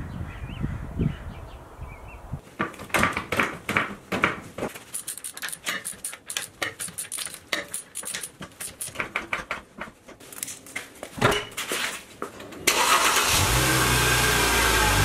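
Front wheel bolts of a Mercedes C-class being loosened with a 17 mm socket on a breaker bar and the wheel taken off: a run of irregular metal clicks and clanks. About two seconds before the end, a loud steady mechanical noise with a low hum starts suddenly.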